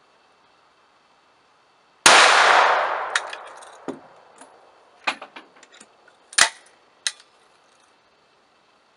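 A single shot from a 12-gauge break-action single-barrel shotgun firing a 9mm round through a Chiappa X-Caliber adapter insert, about two seconds in, its report ringing out and fading over about two seconds. Then a series of short metallic clicks and clacks as the action is broken open, the spent case pulled out by hand and the gun reloaded and closed.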